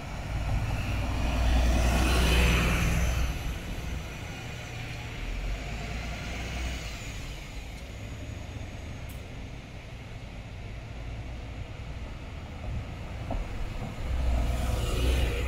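Diesel engines of VDL Ambassador city buses passing close by. The first swells loudest about two seconds in and fades to a steady idle-like hum, and a second bus swells up near the end.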